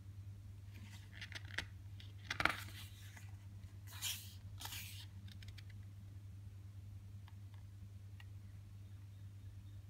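Pages of a glossy photobook being turned by hand: paper rustling and swishing, with a sharp tap about two and a half seconds in and two swishes around four to five seconds, then a few faint ticks, over a steady low hum.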